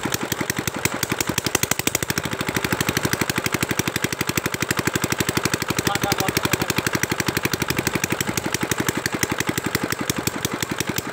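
Small single-cylinder diesel engine running steadily with a fast, even beat while it drives an irrigation water pump.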